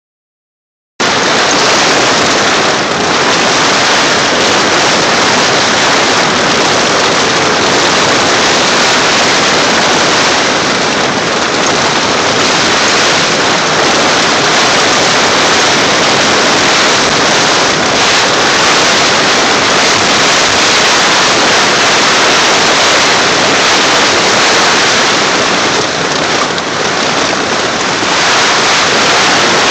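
Heavy rain and wind of a violent thunderstorm: a loud, dense, steady rush of noise that starts about a second in and swells only slightly.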